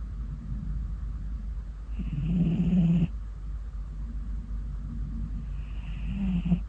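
Orange tabby cat snoring in deep sleep. Two snoring breaths about four seconds apart, each lasting about a second and cutting off sharply: one about two seconds in and one near the end.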